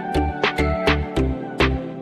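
Background music with a steady beat: heavy bass thumps about three times a second under sustained melodic notes.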